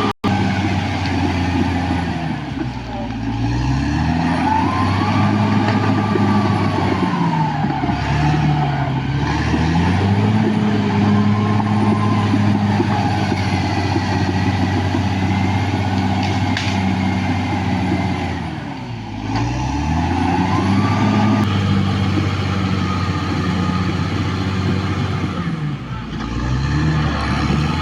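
Caterpillar D6R XL bulldozer's diesel engine working under load. Its pitch sags and recovers about four times as it pulls down and picks back up, with a high whine rising and falling alongside.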